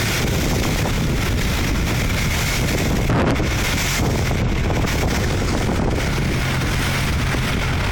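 Boat engine running steadily under way, a constant low drone, with wind buffeting the microphone.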